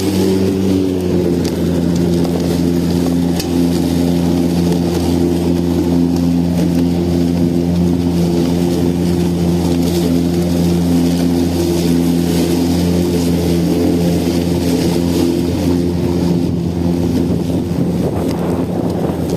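Battery-powered lawn mower running steadily with a constant motor-and-blade hum, dipping slightly in pitch about a second in.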